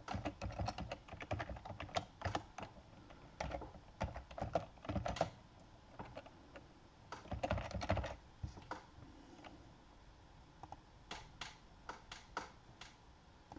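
Typing on a computer keyboard: quick runs of keystrokes, then a few scattered clicks in the last few seconds.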